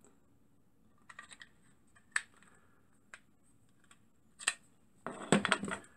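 Handling noise as a small metal alcohol lamp is slid into the slot in the bottom of a wooden engine base. There are scattered light clicks and knocks about a second apart, then a louder cluster of rattling clicks about five seconds in.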